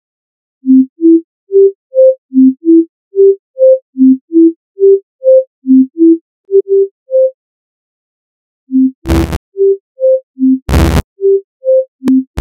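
Computer sonification of a speed skater's stride: short, pure beeps climb a four-note rising arpeggio, about three notes a second, over and over, one cycle every second and a half or so. The beeps stop for about a second and a half past the middle, then the cycle comes back with a loud noisy hit added about once per cycle.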